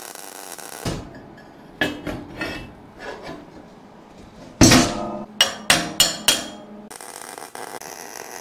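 Hammer blows on steel in a welding shop: a few lighter ringing taps, then about halfway through a run of five hard strikes about three a second, the first the loudest. A steady hiss runs until about a second in.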